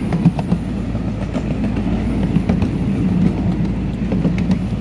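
Miniature park train running along its track, heard from on board: a steady low rumble of the cars with scattered light clicks from the wheels.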